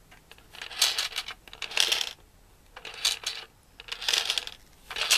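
A boxed toy pachinko game being handled, its contents rattling and clinking in four short bursts.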